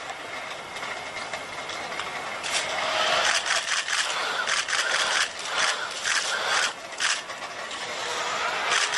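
HRP-4 humanoid robot's electric joint motors and gears whirring and scraping as it moves its arms and bends, louder from about two and a half seconds in.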